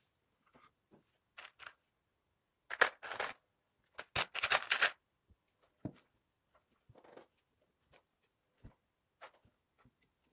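Plastic LEGO bricks clicking and rattling as they are handled and set down on the table, with louder bursts of rattling about three seconds in and again around four to five seconds in.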